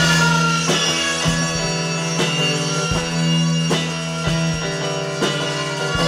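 Background music: sustained instrumental chords over a recurring beat.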